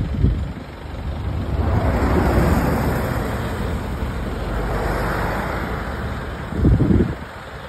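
Road traffic passing close by: a bus and then an SUV go by one after the other, each bringing a swell of tyre and engine noise that rises and fades, over a steady low engine rumble. A brief loud low thump comes near the end.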